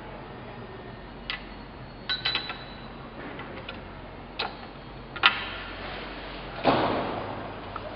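Steady low background hum, broken by a few scattered sharp clicks and light knocks, then a louder brief scraping rustle near the end that fades.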